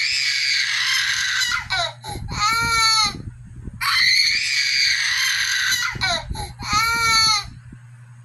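A young child crying hard, twice in the same pattern: a long shrill scream, then a shorter high-pitched wail that falls in pitch at the end, with gasping breaths between. A low steady hum sits underneath.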